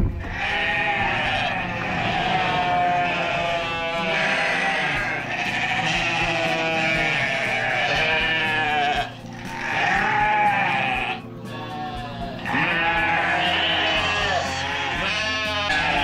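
A barn full of Shetland ewes and lambs bleating all at once, with many loud overlapping, quavering calls that barely pause.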